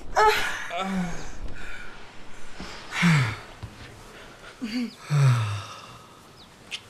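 A couple's sex noises: a woman's short high cries in the first second, then a man's low grunts falling in pitch, three of them a second or two apart, with heavy breaths.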